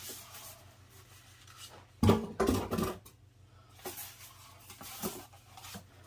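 Cardboard packaging being handled: scraping and rustling with scattered knocks, and a quick run of loud thumps about two seconds in.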